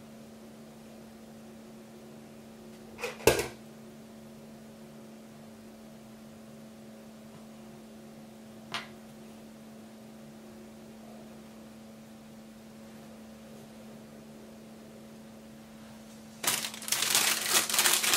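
Plastic wrapper around a stack of ice cream cones crinkling loudly as it is handled, starting about sixteen seconds in. Before that, a steady low hum with two sharp knocks about three seconds in and a fainter click near nine seconds.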